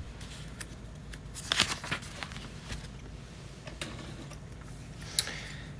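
A few light clicks of plastic LEGO pieces being picked up and handled on a tabletop, scattered through a low steady hum.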